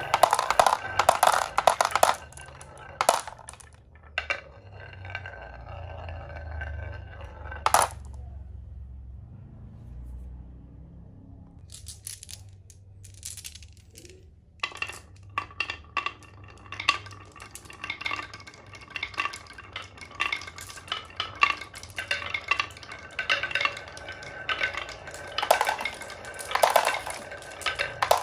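Glass marbles rolling down wavy wooden marble-run tracks, rumbling along the grooves and clacking against the wood and each other in quick, irregular clicks. The clicking thins out and goes nearly quiet for a few seconds about a third of the way through, then picks up again and stays busy.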